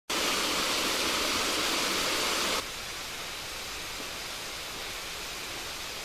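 Waterfall rushing: a loud, steady hiss of falling water that cuts off abruptly about two and a half seconds in, leaving a quieter steady hiss.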